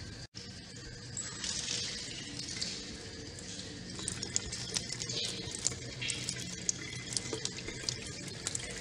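Water running from a tap into a sink, with small splashes and drips. The flow starts about a second in.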